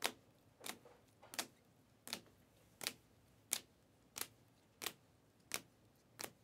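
Glossy Panini Prizm chromium trading cards being flipped one by one through a stack in the hands, a crisp click as each card snaps to the back, in an even rhythm of about one every 0.7 seconds.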